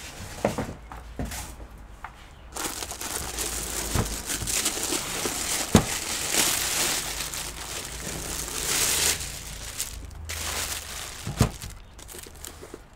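Thin plastic bag crinkling and rustling as it is pulled off a desktop computer case, busiest through the middle of the stretch, with a few sharp knocks mixed in.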